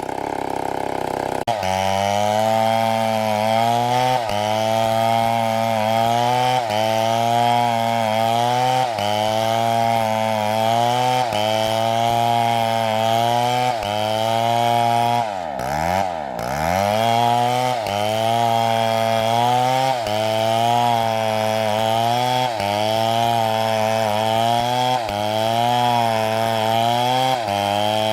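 Two-stroke STIHL chainsaw cutting through a palm trunk under load. Its pitch sags and recovers in a steady rhythm, about once a second, as the bar is worked through the wood. About halfway through, the revs fall sharply and climb back.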